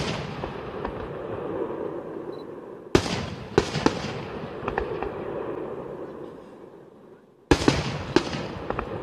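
Aerial firework shells bursting in the night sky. A loud bang comes about three seconds in and another about halfway between, then a few smaller bangs after each, and each trails off in a long fading echo.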